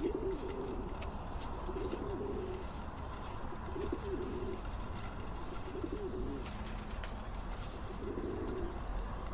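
Pigeons cooing: five short, low, warbling coos, one every second and a half to two seconds, over a faint steady hiss.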